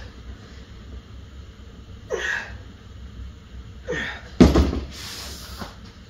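A man's sharp, forceful exhalations, one with each rep of a single-arm cable triceps extension, about every two seconds. The loudest comes about four and a half seconds in, together with a low thud.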